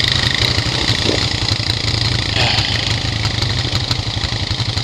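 ATV engines idling with a steady low rumble.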